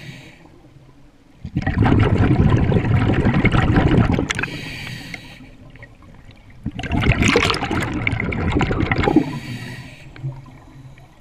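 Scuba regulator breathing underwater: two long bubbling exhalations of about three seconds each, with quieter pauses between them for the inhalations.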